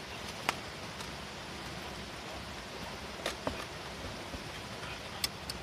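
Meat sizzling in a pot over a charcoal fire: a steady hiss, with a few sharp clicks about half a second in, twice around three seconds in and twice near the end.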